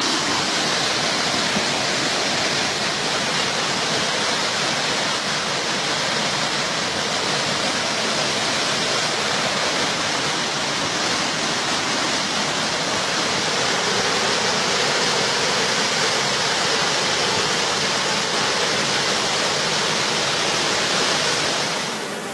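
Floodwater rushing fast, a steady loud rush of water with no letup.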